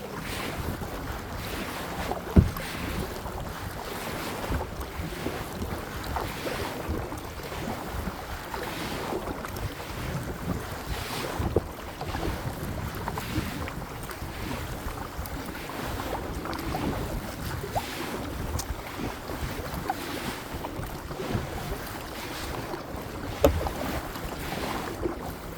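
Kayak paddling on open water, with wind buffeting the microphone: water splashing and washing against the hull, and two sharp knocks, one about two seconds in and one near the end.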